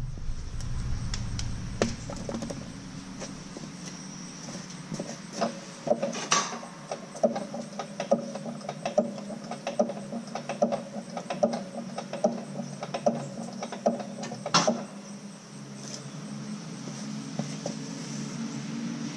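Hydraulic floor jack being pumped: a run of light clicks and knocks about twice a second, with two louder knocks, over a steady low hum.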